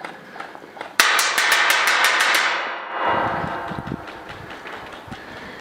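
Airsoft gun firing a rapid burst of about ten shots over a second and a half, with a loud rushing noise under it that fades out after the shots.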